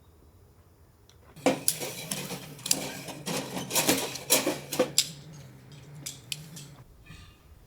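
Dishes and metal cookware clattering as camp gear is packed away: a few seconds of clinks and knocks starting about a second and a half in.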